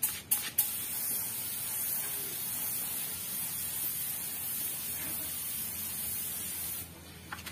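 Compressed-air paint spray gun spraying a car fender: a few short trigger bursts, then a steady hiss of spraying that stops about a second before the end.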